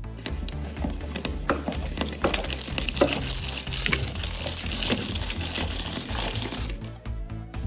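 Hand-cranked plastic meat grinder crushing crumbly red sand through its cutting plate: a steady gritty crackle with scattered sharp clicks, which stops near the end.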